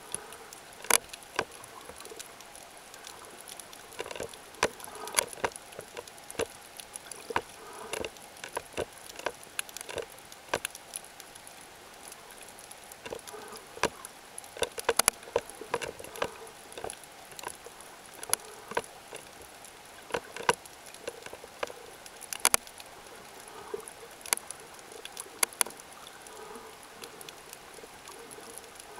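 Underwater ambience picked up by a camera: irregular sharp clicks and crackles, some in quick clusters, over a steady hiss and a thin, steady high tone.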